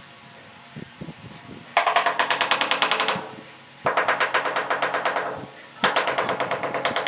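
Enamelled wall tile tapped with the end of a wooden handle to bed it into the mortar behind it. Three runs of rapid knocks, about ten a second, each lasting about a second and a half, starting about two seconds in.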